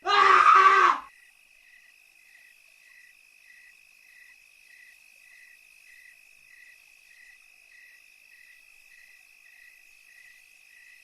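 A loud burst of sound lasting about a second. Then crickets chirp faintly and evenly, about one and a half chirps a second, over a thin steady high tone: a night-time cricket ambience.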